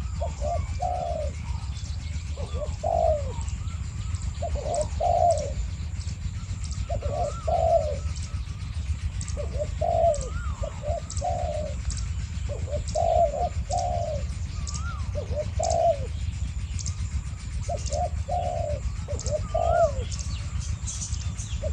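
Spotted doves cooing, a caged decoy and a wild dove calling back and forth. Each phrase is two or three deep coos, repeated every two to three seconds, with fainter higher calls between them.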